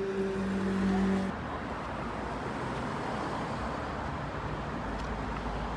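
Road traffic noise from cars on a multi-lane road: an even rumble and hiss. For about the first second a steady low hum lies over it, then cuts off.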